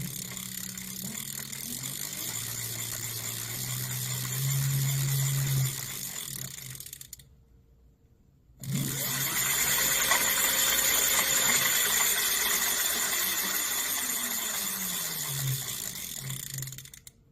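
Motovelo A20 electric bicycle's motor spinning up twice with a whirring whine and a loud high hiss. The pitch climbs, holds and winds down each time, and the second run is longer and louder.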